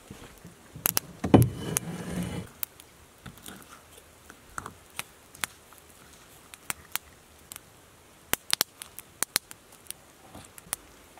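Knife cutting the breast meat off a grouse carcass on a plastic cargo bed: scattered short sharp clicks and taps of blade and hands, with a longer rustle and thump of handling the bird from about one to two and a half seconds in.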